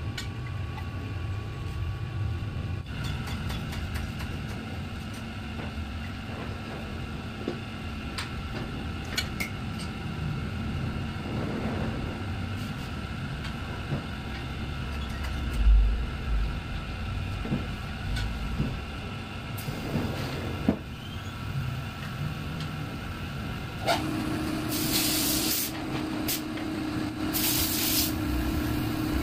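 Steady workshop machine hum with scattered light clicks of metal tools on an aluminium engine casing; near the end a second steady motor hum comes on, with two short bursts of hissing.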